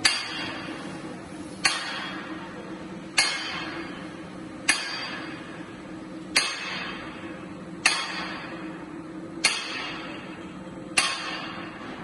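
Sectional garage door panel roll forming line running: a sharp metallic clank about every one and a half seconds, eight in all, each ringing briefly, over a steady machine hum.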